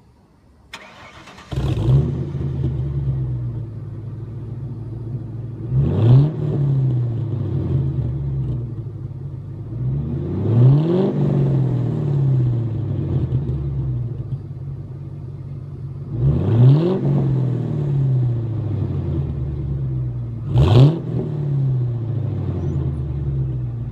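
A car engine with an SLP Loudmouth resonator and BBK X-pipe exhaust starting up about a second and a half in, then idling and revved four times, each rev rising and falling back to idle. The catalytic converters are still fitted, and the owner finds the note not aggressive enough.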